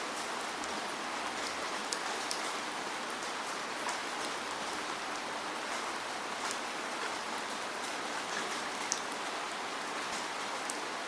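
Steady rainfall: an even hiss of rain with scattered sharper taps of single drops hitting a surface.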